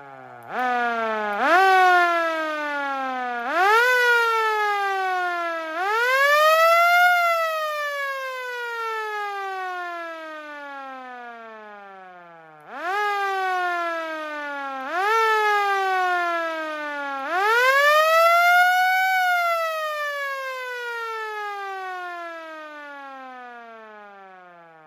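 Osaka Siren Model 5S mechanical motor siren, very loud, switched on in short bursts: three pushes drive its wail up in steps, the third held longest, then it coasts down slowly in pitch. This happens twice, the second time winding down at the end.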